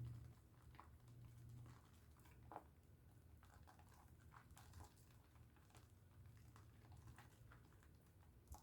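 Faint wet squishing and soft crackling clicks of hands lathering a bar of Dove soap.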